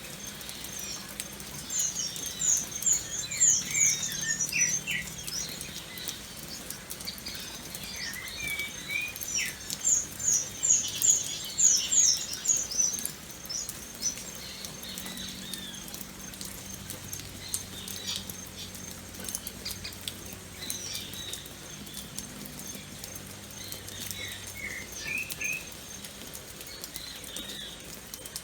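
Rain pattering and dripping steadily while birds chirp in quick runs of high notes, most busily a couple of seconds in and again around ten seconds in, with fainter calls later.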